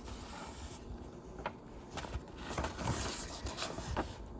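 Handling of model-kit packaging and parts: rustling with a few light clicks and scrapes, the rustle busiest about halfway through.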